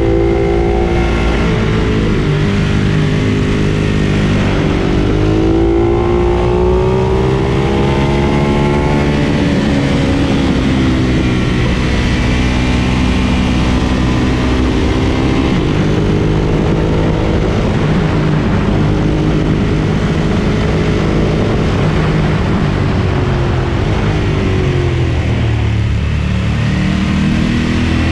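Ducati Monster 1200 S's L-twin engine running under way, its revs rising and falling several times as the bike accelerates and slows.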